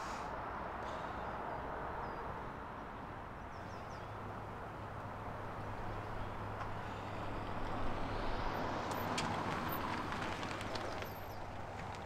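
Outdoor traffic ambience: a steady wash of distant road traffic, with a low engine-like hum setting in a few seconds in and a handful of light clicks near the end.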